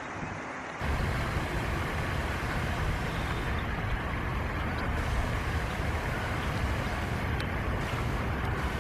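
Wind buffeting the microphone: a steady low rumbling roar that starts abruptly under a second in and carries on evenly.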